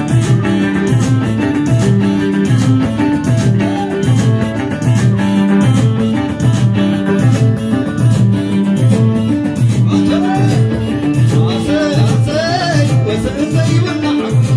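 Live Tigrigna guayla dance music: amplified plucked krar and electric guitar over a steady repeating low beat. About ten seconds in, a voice joins with sliding, wavering notes.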